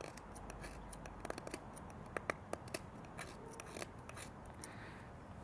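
Very thin CPM 10V steel knife shaving curls off a bamboo stick: a run of faint, irregular crisp clicks as the edge bites through the bamboo fibres.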